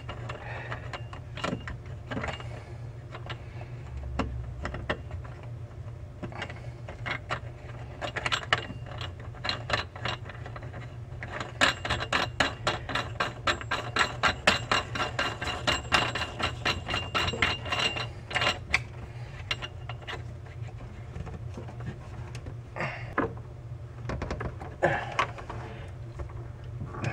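Small fittings clicking and rattling as a hand works the reverse osmosis faucet's mounting hardware up under the sink by feel, with a dense run of quick clicks in the middle, over a steady low hum.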